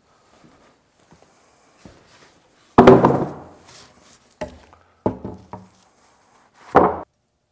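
Wooden thunks and knocks as a board is laid onto a squared log and knocked into place: one loud thunk about three seconds in, a quick run of smaller knocks, and another thunk near the end.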